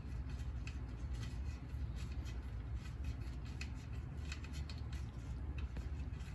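Light metallic clicks and scrapes of a broken bicycle spoke being twisted and unthreaded from its spoke nipple in the rim, over a steady low hum.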